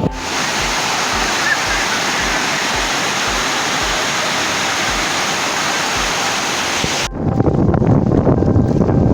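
Water rushing in a steady, even hiss, like breaking surf. About seven seconds in it cuts suddenly to rougher, lower, gusting sea and wind noise.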